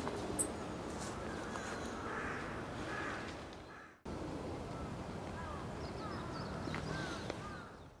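Outdoor bird ambience: many short bird calls over a steady background hush. The sound fades out about halfway through and starts again abruptly at a cut between recordings.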